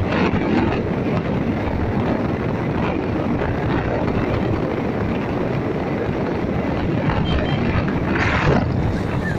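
Wind rushing over the microphone of a motorcycle riding at road speed, with engine and road noise underneath. A brief louder rush of wind comes about eight seconds in.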